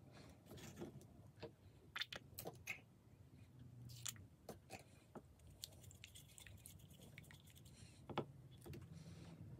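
Faint scraping and scattered light clicks of a paintbrush stirring a mix of plaster and water in a small jar, the loudest click about eight seconds in.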